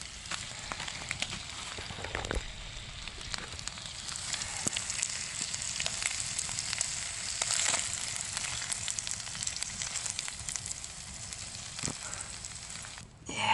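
Trout pieces frying in a GSI Pinnacle pan over a campfire: a steady sizzle with many small pops. It stops abruptly near the end.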